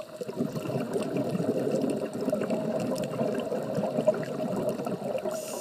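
Underwater bubbling: a dense, steady gurgle of water and bubbles that swells about half a second in and keeps on.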